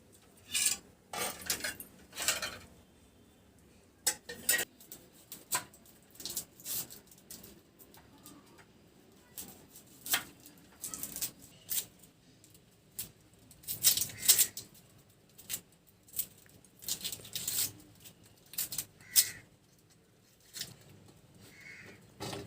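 Hard-boiled eggs being cracked and peeled by hand: irregular sharp clicks and crackles of eggshell breaking, with taps and clinks against a dish.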